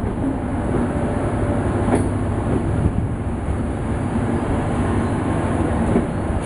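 Intercity train of passenger coaches rolling through the station: a steady low rumble of wheels on rail, with a few sharp clicks.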